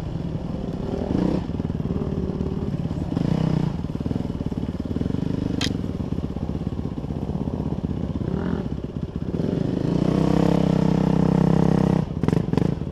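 Dirt bike engine heard from the rider's helmet, running under throttle and swelling and easing off several times as it is ridden along a trail, then holding steady, louder revs near the end. A single sharp click about halfway through and some clattering near the end.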